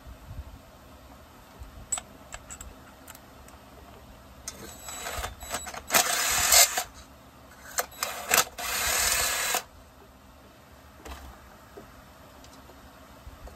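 Cordless power driver running in several short bursts, the longest about a second, backing screws out of a chainsaw's housing. Light clicks of tools and parts being handled come before and after.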